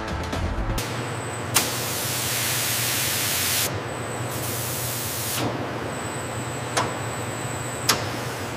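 Hissing jet of liquid spraying from a nozzle into a tank. It is louder in two stretches, one of about two seconds and a shorter one of about a second, with a few sharp clicks between them.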